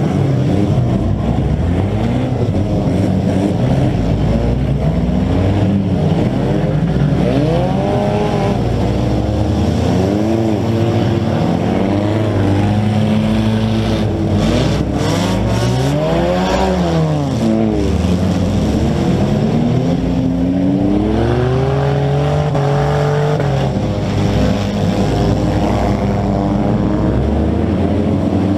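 Several demolition-derby compact cars' engines revving at once, their pitches rising and falling over one another as the cars ram each other. A cluster of sharp knocks comes about halfway through.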